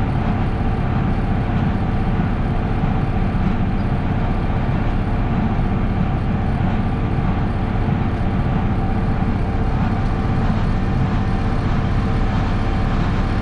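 Tractor diesel engine running at steady revs under load, driving a square hay baler through the PTO.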